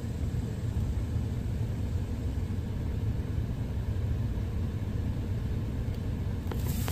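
Steady low rumble of road vehicles, with a faint click near the end.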